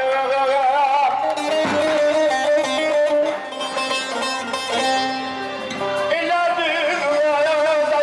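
A man sings a Turkish folk song through a microphone and PA loudspeaker, accompanied by a bağlama (long-necked saz lute). There is an instrumental passage in the middle, and the voice comes back about six seconds in.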